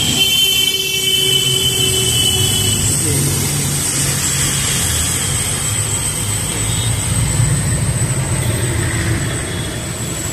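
Steady street traffic noise, with a motor vehicle's engine running and a thin steady high tone over it.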